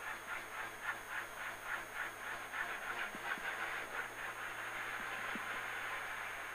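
Renault Clio Super1600 rally car's 1.6-litre four-cylinder engine running at low revs as the car drives slowly, heard from inside the stripped cabin: a steady hum with a regular, rhythmic chatter over it that fades toward the end.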